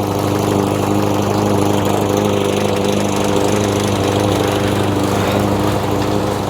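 Troy-Bilt walk-behind lawn mower engine running steadily, with an idle the owner calls rough after a valve clearance adjustment.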